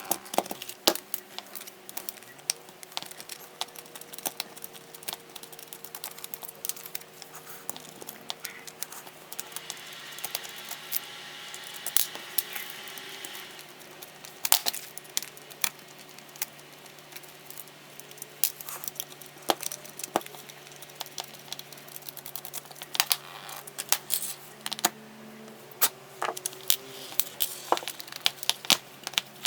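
Irregular clicks, taps and rattles of hand tools, screws and the drill's plastic housing being handled while a cordless hammer drill is taken apart, with a steadier rustling stretch of a few seconds near the middle.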